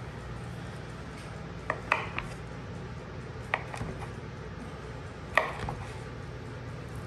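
Kitchen knife knocking on a wooden cutting board as it slices through a rolled log of crescent dough: a few sharp knocks, three close together about two seconds in, one more a second and a half later and the loudest near the end, over a steady low hum.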